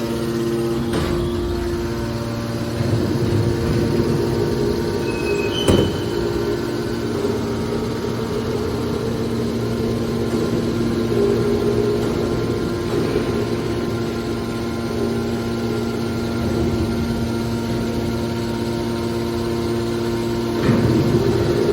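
Hydraulic power unit of a small can baler running: a steady electric motor and pump hum, with a few short knocks, the sharpest about six seconds in.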